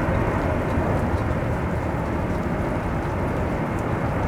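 Steady noise of heavy rain and wind, with a deep rumble underneath and faint scattered ticks of raindrops.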